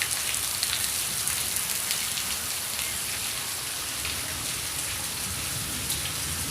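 Heavy rain falling steadily, a dense even hiss with many separate drops ticking on hard surfaces.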